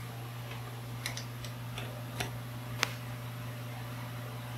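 A few light metallic clicks as the steel lift cable and pulley parts of a four-post car lift are handled, the sharpest nearly three seconds in, over a steady low hum.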